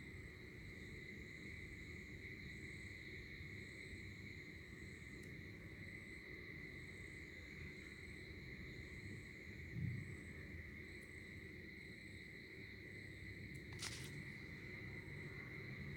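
Faint steady high-pitched background hum or chirring with low rumble underneath, broken by a soft low thump about ten seconds in and a sharp click near the end.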